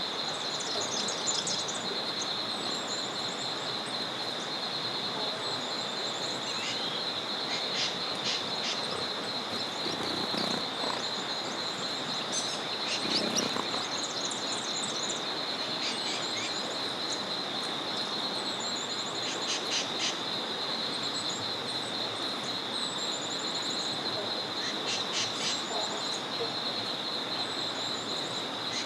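Forest river ambience at dusk: the steady hiss of a small river flowing, under a continuous high, fast-pulsing trill, with songbirds chirping and calling on and off.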